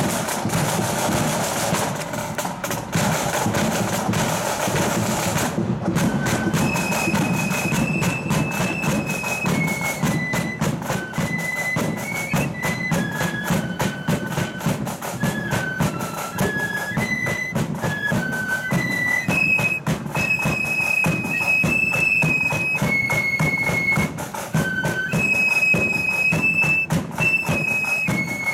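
A marching flute band plays: drums alone for the first few seconds, then the flutes come in with a high melody about six seconds in, played over a steady beat of side drums and bass drum.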